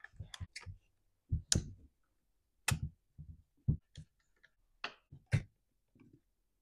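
Irregular sharp clicks and light taps of a T-handle Torx driver and hard plastic parts as screws are backed out of a Stihl MS211 chainsaw's air filter base, about ten in all, with the tool set down on the bench near the end.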